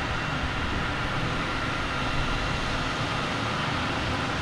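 Jet aircraft engines running steadily: an even low rumble with a faint high whine held on one pitch.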